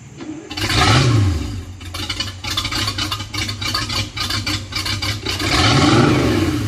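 Boat engine running with a fast, even pulse, revved up and back down twice: about a second in and again near the end.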